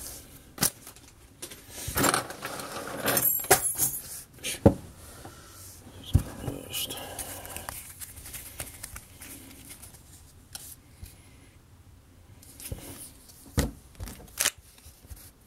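Baseball trading cards being handled: cards flipped through by hand and set down on a wooden desk. The handling gives scattered sharp clicks and taps, with a denser run of rustling and scraping about two to three and a half seconds in.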